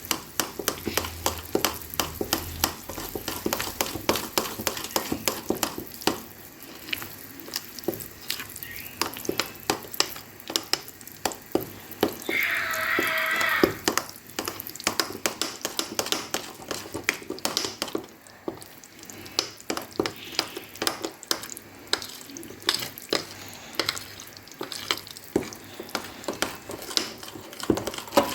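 A utensil stirring thick semolina basbousa batter in a bowl: a rapid, irregular run of clicks and scrapes against the bowl. A brief higher-pitched sound cuts in about halfway through.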